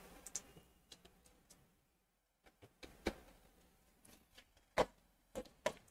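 A quiet room with a handful of faint, brief clicks scattered through it.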